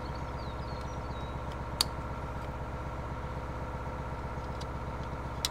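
International service truck's engine idling steadily, with a sharp click about two seconds in.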